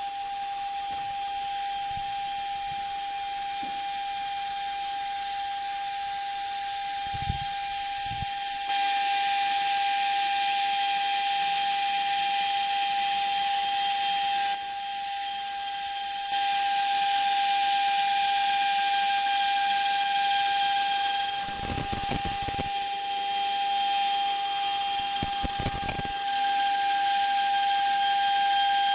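CNC router spindle running with a steady high whine over a hiss of the bit in polystyrene foam. The hiss grows louder about a third of the way in, drops back briefly near the middle, then returns, with two short low rumbles later on.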